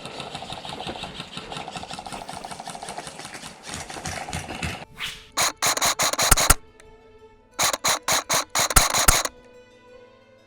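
Two bursts of rapid full-auto fire from a close airsoft gun (a Krytac Kriss Vector), each lasting about a second and a half, coming after several seconds of rustling movement noise. Background music runs underneath the bursts.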